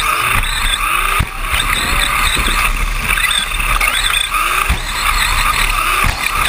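Team Associated SC10-RS electric short course truck racing on dirt: its motor and drivetrain whine, the pitch wavering up and down with the throttle, with frequent short knocks from the chassis over bumps.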